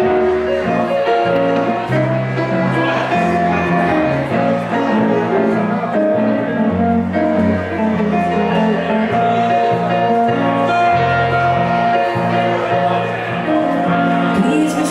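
Live blues band music: a hollow-body archtop electric guitar and a stage keyboard playing together over a stepping bass line, with no clear vocal.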